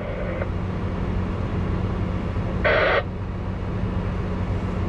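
Tractor engine running steadily with a low drone, pulling a heavily loaded grain cart. About three seconds in there is a brief, higher-pitched burst lasting about a third of a second.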